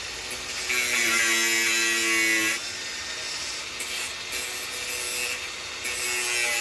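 Power tool working wood: a steady motor hum over a continuous cutting or sanding noise. It is louder in the first couple of seconds, then drops and changes pitch about two and a half seconds in.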